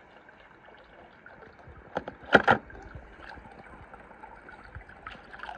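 A hand moving through shallow pool water, with a couple of short splashes about two seconds in.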